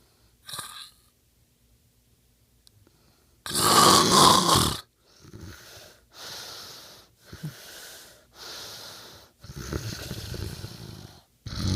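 A man snoring in his sleep. After a near-quiet start there is one loud snore about three and a half seconds in. Several quieter snoring breaths follow about a second apart, and another loud snore begins at the very end.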